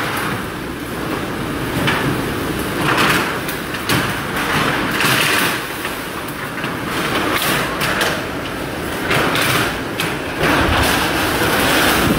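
Strong typhoon wind gusting against a building with a damaged corrugated metal roof, rising and falling every second or two, with scattered knocks and rattles.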